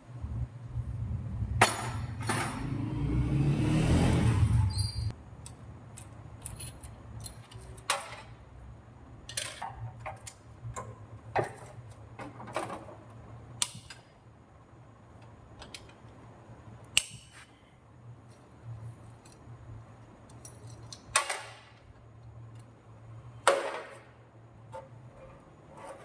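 Metal tools clinking and knocking at irregular intervals over a steady low hum, with a louder rumble that swells and cuts off in the first five seconds.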